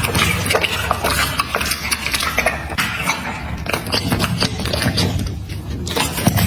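Dog eating raw meat from a plate, with many quick, irregular chewing and smacking clicks.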